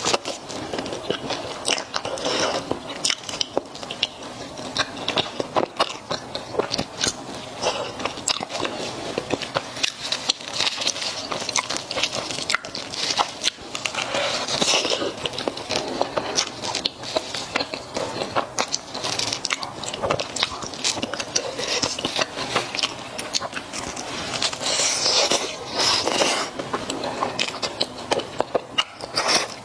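Close-miked biting and chewing of squid-ink durian pizza: a steady run of small crunches and chewing sounds.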